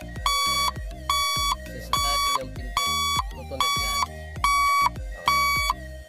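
Electrician's buzzer tester beeping in an even series, about seven short beeps a little more than one a second, sounding through the door-pin wire: the negative-trigger door pin line is good.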